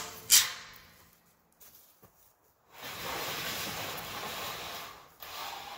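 A single sharp knock about half a second in that quickly dies away. After a quiet pause, a steady rushing noise starts about three seconds in and dips briefly near the end.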